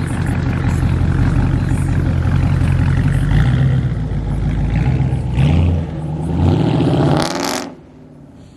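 Chrysler 300's engine and exhaust, fitted with long-tube headers and high-flow cats, running loud. It swells twice in quick succession, then the sound drops away abruptly near the end.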